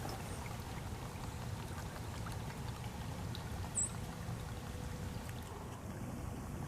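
Water trickling and sloshing over a low steady rumble, with one short high squeak a little under four seconds in.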